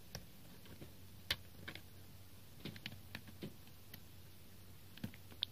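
Faint, scattered clicks and taps of an external slim DVD drive enclosure being handled and turned over in the hands, with one louder click a little over a second in.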